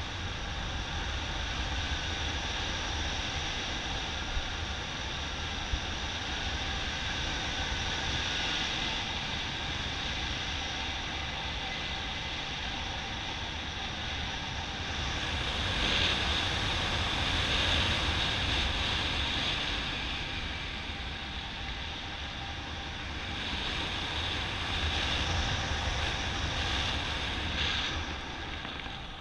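Airflow of a paraglider in flight rushing over the action camera's microphone: a steady rush of wind that swells about halfway through and again near the end.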